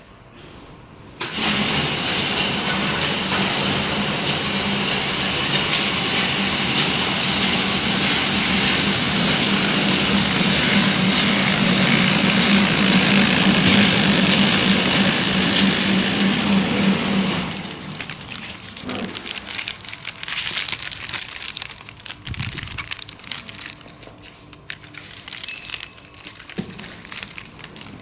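Coretamp KT-250B flow-wrapping machine for ice lollies running: a loud, steady mechanical whir with a low hum starts about a second in. After about seventeen seconds it drops to a quieter running sound with irregular clicks and rustles.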